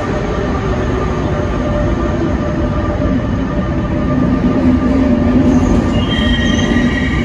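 NS intercity train pulling in along an underground station platform: a steady loud rumble of wheels and running gear. A high-pitched squeal sets in about six seconds in as the train slows.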